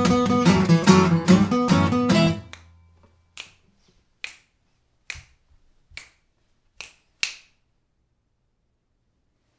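Two acoustic guitars strummed through a final chord that rings out and dies away. Then about six finger snaps follow, roughly a second apart, the last two close together.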